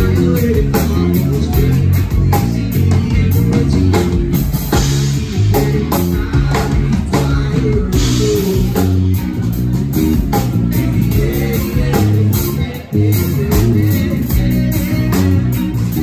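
Live rock band playing loud through a PA: electric guitar, bass guitar and drum kit, with cymbal crashes about five and eight seconds in.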